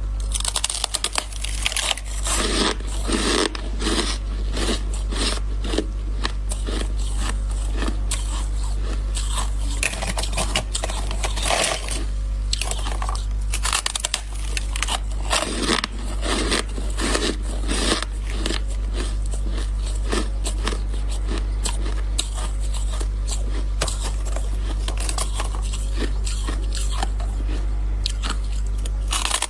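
Shaved ice being bitten and chewed close to the microphone: dense, irregular crunching that goes on throughout, over a steady low hum.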